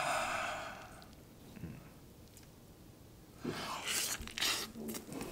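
A brief rushing noise in the first second, then a person biting into a halved raw avocado and chewing, a cluster of bites from about three and a half seconds in.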